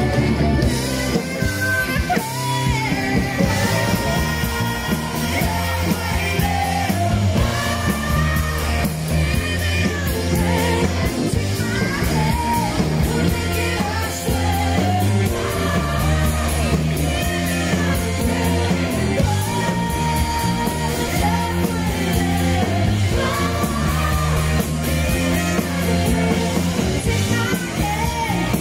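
A rock band playing live, with a singer singing over the band at a steady loud level.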